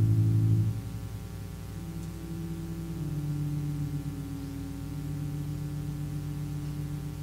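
Soft, slow music on a keyboard instrument: sustained low chords held for a second or two each before moving to the next.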